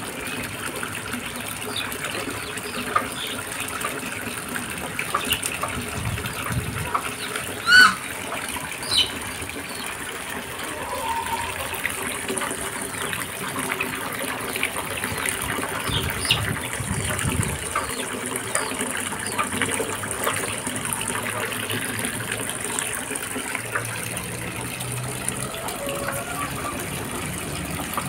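Water running from a garden hose into a plastic tub, a steady gushing fill. A few short calls from the chickens and ducks cut through it, the loudest a sharp one about eight seconds in.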